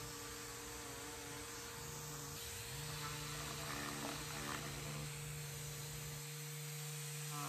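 A SurfPrep sander running with a DeWalt shop vac pulling dust through it: a faint steady hum, its pitch stepping up slightly two to three seconds in.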